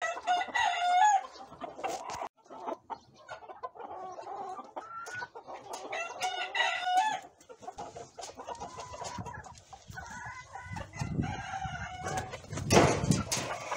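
Pavlovsky roosters crowing several times, with clucking between the crows. Near the end a louder burst of noise covers the calls.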